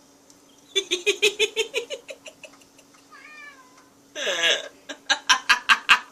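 A domestic cat meowing insistently: a fast string of short calls rising in pitch, then a brief gliding call and a louder, longer meow falling in pitch, followed by a quick run of sharp clicks about five a second.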